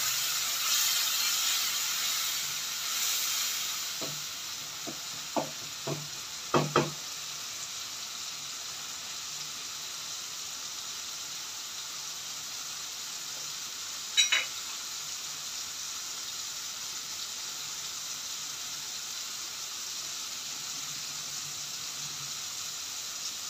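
Onion-tomato masala sizzling steadily in hot oil in a wok, louder for the first few seconds just after a little water is added, with a wooden spatula stirring at first. A few short knocks between about four and seven seconds in, and a double knock about fourteen seconds in.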